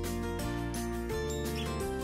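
Background music: an instrumental track whose notes change every half second or so.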